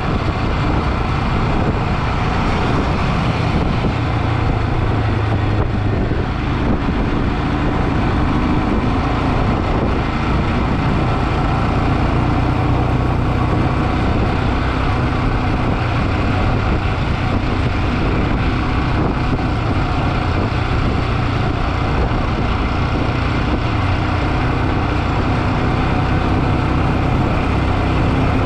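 Motorcycle running steadily on the move, its engine hum under a dense, even rush of road and wind noise.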